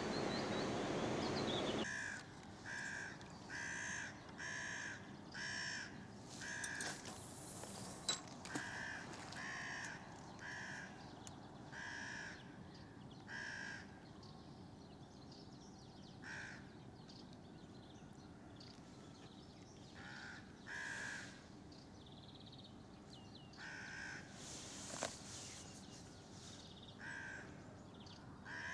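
A crow cawing repeatedly: runs of short hoarse caws, roughly one a second, with pauses between the runs. For the first two seconds a steady rushing noise fills the sound and then cuts off abruptly, and there is a single sharp click about eight seconds in.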